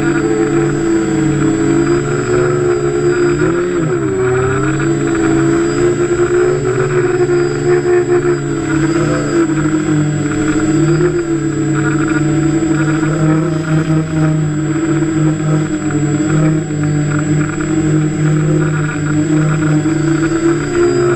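Electric motors and propellers of a hovering multirotor, heard from on board: a steady hum of several pitches that shift slightly with the throttle, dipping and rising briefly about four seconds in.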